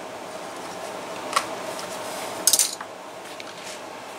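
Small metal hand tool clicking while old stitching is worked out of a leather holster: one sharp click about a second and a half in, then a louder quick rattle of clicks a second later, over a steady room hum.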